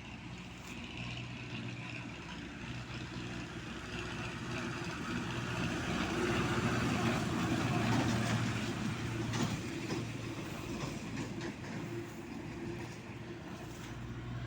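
A motor vehicle passing by over a steady low engine hum, building to its loudest about eight seconds in and then fading.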